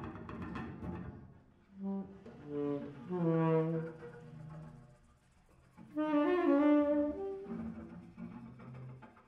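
Free-improvised jazz: saxophones playing held, wavering notes in separate phrases, loudest about three and six seconds in, with a low double bass line underneath.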